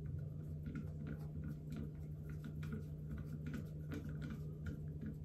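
Screwdriver turning the grip screw of a single-action revolver, giving small irregular clicks and ticks a few times a second as the grips are snugged down, over a steady low hum.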